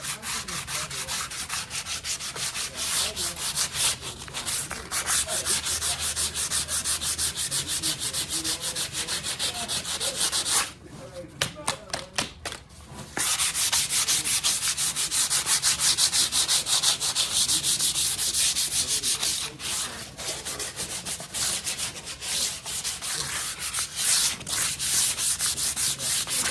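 180-grit sandpaper rubbing in rapid strokes over CA-glue-sealed pressboard, smoothing the water-swollen surface. The strokes pause for a couple of seconds about ten seconds in.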